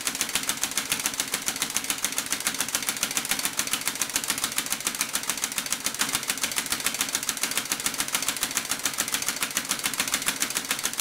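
An old two-stroke chainsaw engine converted to run on compressed air, running steadily. It gives a rapid, even beat of hissing air-exhaust puffs.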